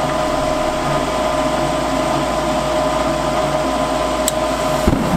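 High-efficiency gas furnace's draft inducer motor running with a steady whine. A little past four seconds in, the gas valve clicks open, and about half a second later a soft low thump follows as the burners light off the hot surface igniter.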